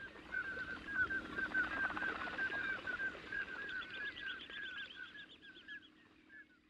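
A flock of common scoters calling: many short, overlapping whistled notes, with a quicker, higher run in the middle, fading out near the end.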